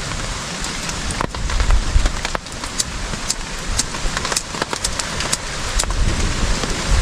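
Steady rain falling, with many sharp drop hits throughout and a few low rumbles that swell and fade.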